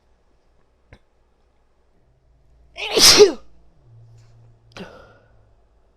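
A woman sneezes once, a loud 'achoo' about three seconds in, with a quieter short sound about a second and a half after it.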